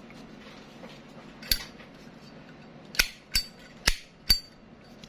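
Zippo lighter's hinged metal lid flicked open and snapped shut: five sharp metallic clacks, the last ones coming in quicker succession and a couple leaving a brief high ring.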